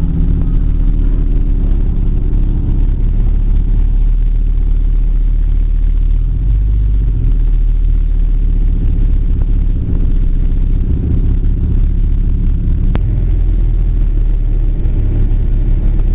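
A car or truck engine idling steadily, heard from inside the vehicle's cab.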